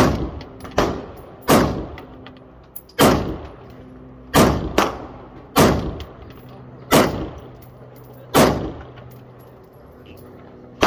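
AR-15 rifle fired in a string of single shots, about nine or ten, each a sharp crack with a ringing tail, at uneven gaps of under half a second to about a second and a half.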